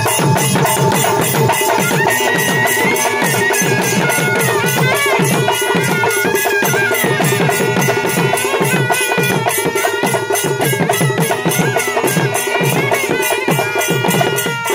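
Traditional Tamil festival drumming: rope-laced drums beaten with sticks in a steady, fast beat, with jingling percussion. About two seconds in, a high, wavering melody joins above the drums.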